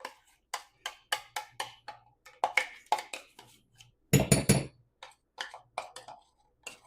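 A spoon knocking against a measuring cup and bowl as Greek yogurt is spooned out: an uneven string of short knocks, with a louder quick flurry about four seconds in.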